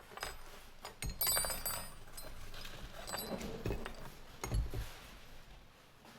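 Small metal parts clinking and knocking as they are handled, with a run of bright ringing clinks about a second in and again around three seconds, and two dull thuds in the middle.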